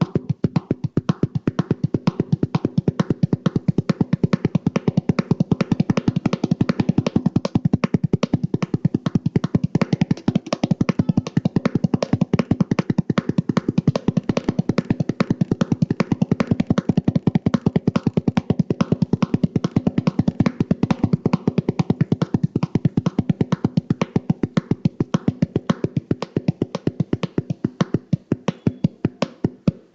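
Drum struck in a rapid, even run of strokes imitating a horse's galloping hoofbeats, slowing to a few spaced hits near the end.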